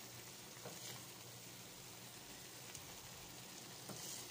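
Chicken simmering in a thick soy-chili sauce in a frying pan: a faint, steady sizzle and bubbling, with a few light taps of a wooden spatula.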